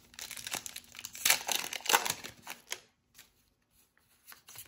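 Foil Pokémon booster-pack wrapper crinkling as it is torn open, a dense crackle for about three seconds, then quiet with a few faint rustles as the cards are handled.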